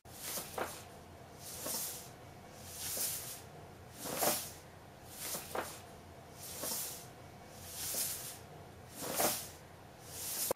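A kitten inside a paper shopping bag: soft hissing sounds repeat about once every second and a quarter, with a few light clicks among them.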